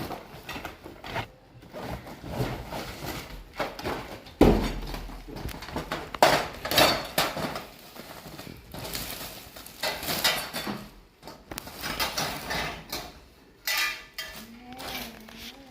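Stainless steel stand parts, rods and plates, clinking and clanking as they are handled, with one heavier knock about four and a half seconds in.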